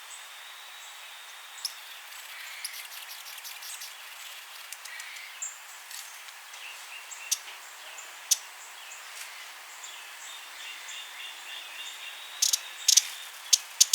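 Broad-billed hummingbird giving short, high, dry chip notes, scattered singly at first and then in a quick run of several near the end, over a steady background hiss.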